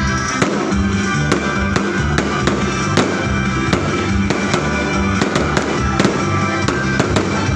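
Music playing over fireworks going off, with irregular sharp cracks two or three times a second.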